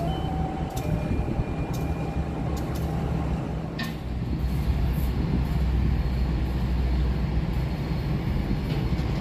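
Jayakarta Premium passenger train running, a steady low rumble of diesel locomotive and wheels that swells slightly about halfway through. There are a couple of brief high squeals near the start and a single click about four seconds in.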